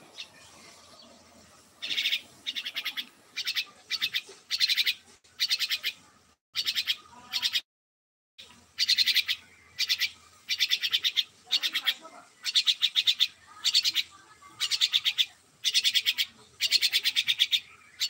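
A myna giving short, rattling call bursts over and over, several every couple of seconds, starting about two seconds in, with a brief silent break near the middle.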